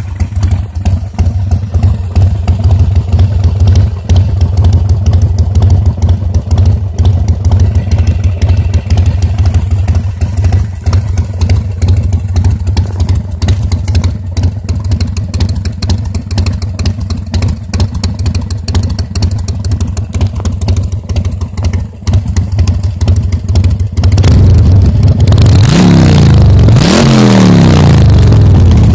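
Harley-Davidson Sportster 1200 Seventy-Two V-twin with Screamin' Eagle exhaust and air filter, idling with a steady beat through its chrome pipes. Near the end it is revved twice, the pitch rising and falling each time.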